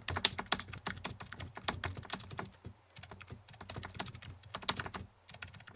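Computer keyboard typing: rapid, uneven runs of key clicks, with a short break about three seconds in, ending abruptly.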